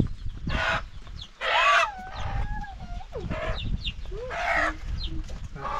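Domestic chickens clucking and squawking, a call about once a second.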